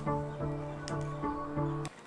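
Background music: a melodic track of sustained pitched notes changing about three times a second, cut off abruptly near the end.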